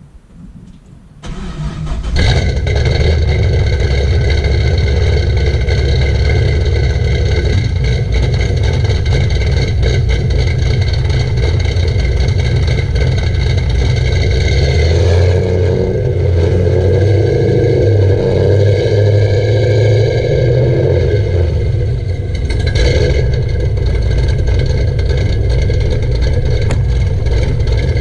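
Cammed Chevrolet Camaro SS V8 with an MBRP exhaust starting up about a second in, then idling loudly and steadily. Its sound shifts about halfway through, and the car starts to roll near the end.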